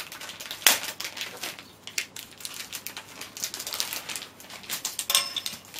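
Wrapping paper rustling, crinkling and tearing in irregular bursts as a present is unwrapped by hand, with a brief pitched sound near the end.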